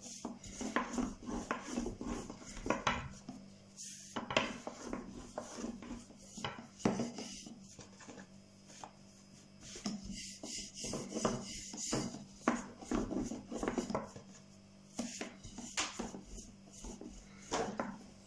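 Thin wooden rolling pin rolling small rounds of dough on a floured wooden board: repeated rubbing strokes broken by light knocks of wood on wood.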